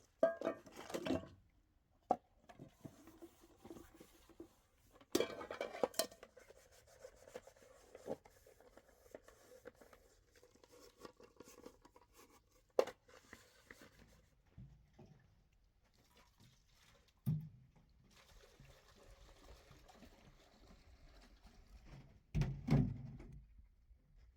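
Household objects being handled: scattered clinks, knocks and scrapes, with louder bumps just after the start, about five seconds in, and near the end.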